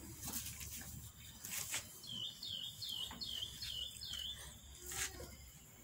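A bird calling in the background, a run of six quick high notes that each dip and rise, about two a second, starting about two seconds in. There are also a few brief scratchy noises, one near the start, one a little before the calls and one about five seconds in.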